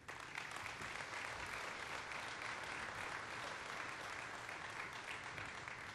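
Audience applauding: many people clapping, starting suddenly and tapering off near the end.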